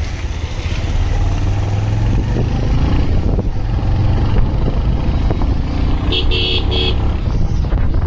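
Steady low engine and wind rumble of a vehicle riding along a road, with a vehicle horn beeping in a few quick toots about six seconds in.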